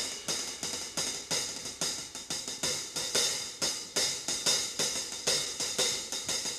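Background music: a drum break of cymbal and hi-hat strokes on a kit, about three a second, without the horns.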